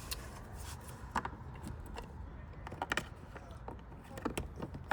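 Handling of car door trim: a few separate sharp plastic clicks and knocks as the door's flaps and trim pieces are pressed back into place.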